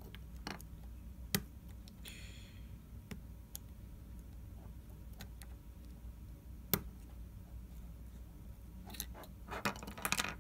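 Light, scattered clicks and taps of a small precision screwdriver working on the metal bracket inside an opened iPhone 6s, with a brief scratch about two seconds in and a quick run of clicks near the end.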